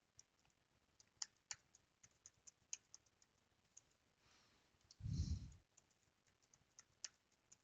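Faint, irregular clicks of a computer keyboard and mouse, with a brief low sound about five seconds in.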